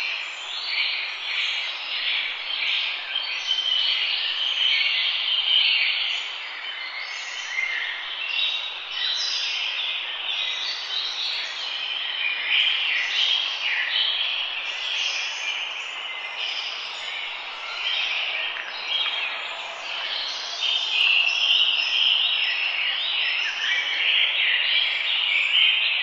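Many birds chirping and singing at once in a dense, unbroken chorus of short overlapping calls, over a steady background hiss.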